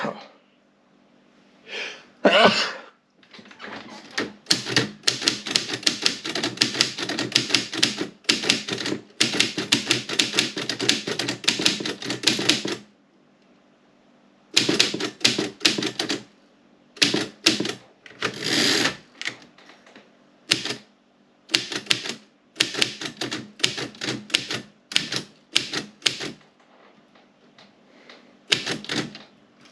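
Woodstock No. 5 manual typewriter being typed on: runs of rapid, sharp key strikes, broken by a few short pauses.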